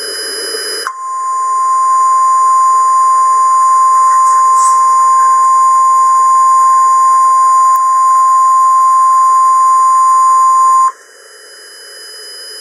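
Emergency Alert System attention tone for a tornado warning: a single steady high beep starting about a second in and held for about ten seconds. It then stops, leaving a short stretch of hiss that cuts off near the end.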